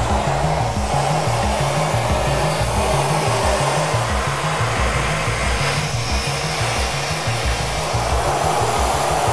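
CNC plasma cutter torch cutting a 12-inch circle out of 12-gauge mild carbon steel sheet: a loud, steady hiss.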